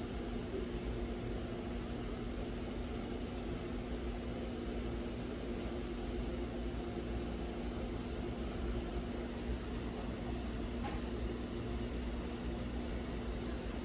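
Steady mechanical hum of a running machine or appliance, holding two low notes over a low rumble.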